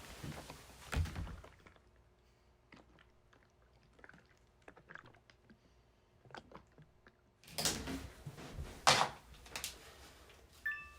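Scattered light clicks and taps, then a cluster of louder knocks and thuds between about 7.5 and 10 seconds in, followed by a few short high tones near the end.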